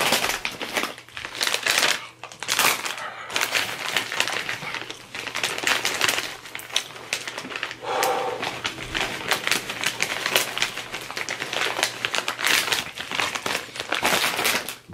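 Takis rolled tortilla chips being crunched and chewed close to the microphone, a dense run of crackly crunches with short pauses.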